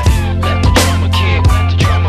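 Background music: a rock track with a steady drum beat over a sustained deep bass.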